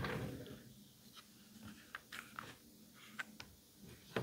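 Handling noise from a Stihl MS170 chainsaw being taken apart by hand: a louder rustle right at the start, then scattered light clicks and knocks of plastic and metal parts.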